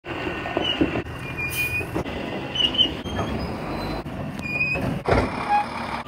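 Automated side-loader garbage truck running, with about five short, high-pitched squeaks from the truck and a louder clunk about five seconds in.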